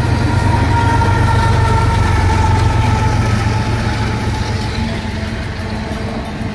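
A Union Pacific diesel locomotive running in the middle of a freight train, its engine passing close by with a deep drone and a high whine. The whine slowly falls in pitch as the unit goes by. It is loudest in the first few seconds and eases off toward the end.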